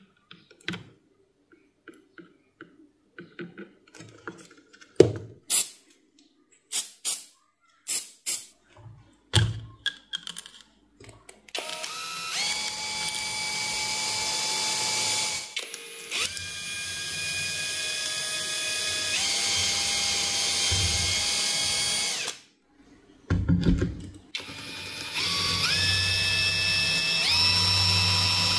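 Scattered clicks and knocks of handling, then an 18V Panasonic EY3551 cordless circular saw's motor spinning up with a whine that climbs in steps, running about ten seconds and stopping. After a thump it starts again and climbs in steps once more.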